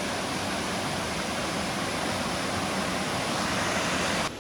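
Dingmans Falls, a 130-foot waterfall, making a steady rushing of falling water that cuts off abruptly near the end.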